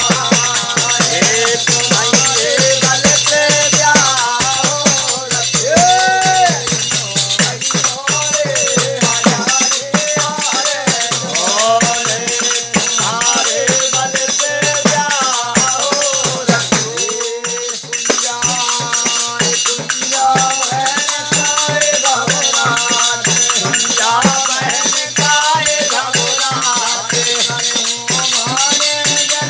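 A man sings a Bundeli folk song to fast, steady percussion: a frame drum with jingles, wooden clappers with jingles and small hand cymbals. The jingles give a constant metallic rattle.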